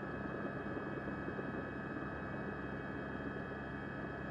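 Steady mechanical drone: a constant hum with several held tones over an even rushing noise that does not change.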